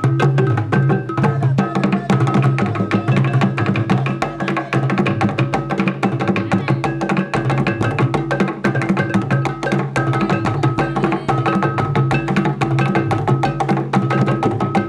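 Traditional abele dance music played on wooden drums: a fast, dense, unbroken stream of wooden strokes over steady sustained low notes.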